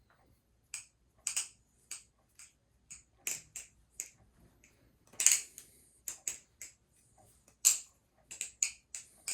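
Balisong (butterfly knife) being flipped: a run of sharp, irregular clacks as the handles swing around the pivots and strike each other and the blade.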